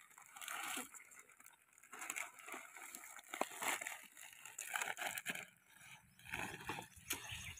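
Faint, irregular rustling and crinkling as hands press loose soil and crushed dry leaves into a foil chip packet.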